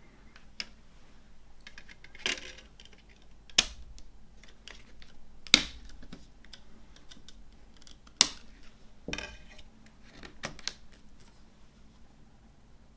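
A plastic CD jewel case and disc handled by hand: several sharp plastic clicks and snaps, the loudest near the middle, as the disc is pressed onto the case's centre hub and the case is worked open, with light rustling between.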